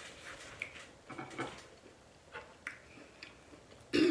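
A person chewing lobster with soft wet smacks and small clicks of the mouth, then one louder knock near the end.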